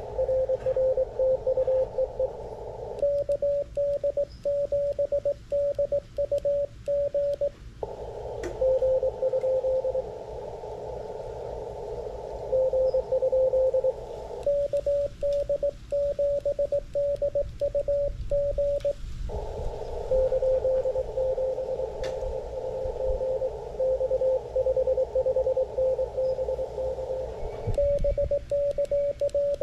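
Morse code (CW) contact heard through an mcHF QRP transceiver. A received station's dits and dahs sound inside the rig's filtered band of hiss. Three times they alternate with the operator's own paddle-keyed sidetone, a slightly higher tone sent while the receiver hiss is muted.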